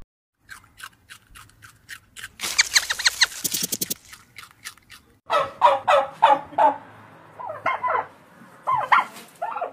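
Domestic fowl calling: a series of short clucks, then a rapid rattling call lasting about a second and a half, then a run of short pitched calls.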